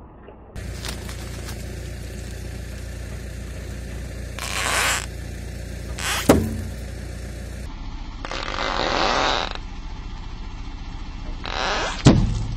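A car's tyre crunches slowly over gravel, with a low engine hum underneath. Twice, about six seconds apart, a sharp loud pop rings out as the tyre crushes a balloon.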